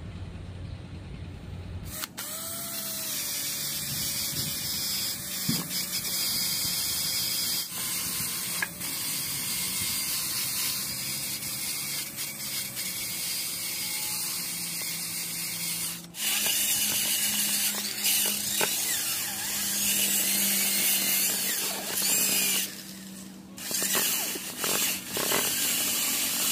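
A small electric power tool running steadily on wood in several stretches, breaking off briefly a few times between them.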